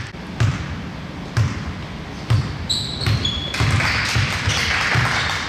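Basketball being dribbled on a gym's hardwood floor: low bounces about once a second at first, coming quicker in the second half. A couple of short high squeaks about three seconds in.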